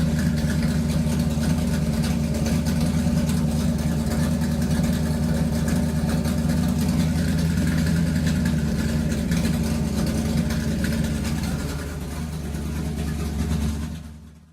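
A motor running loudly and steadily with a strong low hum. It slackens briefly near the end, picks up again, then fades out.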